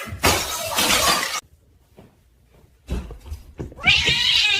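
A noisy clatter lasting about a second and a half, a break of near silence, then more clatter, and a high-pitched wavering voice near the end.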